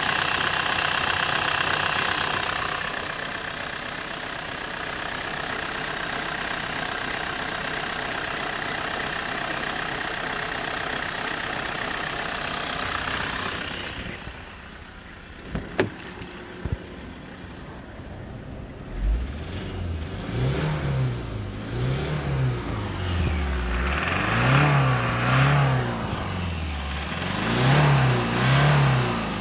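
Toyota 2AD-FTV 2.2-litre four-cylinder turbodiesel running at idle, then revved in short blips from about two-thirds of the way through, the revs rising and falling again, often two at a time. A couple of sharp clicks come shortly before the revving starts.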